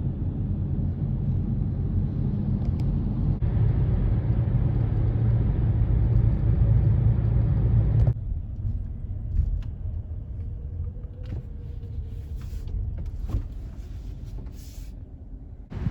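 Car road and engine noise heard from inside the cabin while driving, a steady low rumble. About halfway through it drops suddenly to a quieter rumble with a few small clicks.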